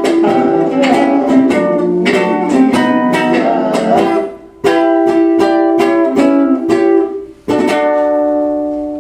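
Live instrumental ending of a song on strummed string instruments: rhythmic chords that stop sharply twice, then a final chord left ringing and slowly dying away.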